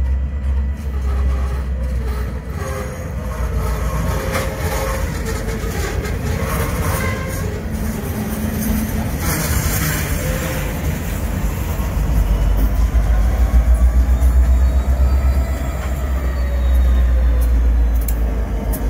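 Union Pacific freight train rolling past, with a steady low rumble and occasional sharp clicks.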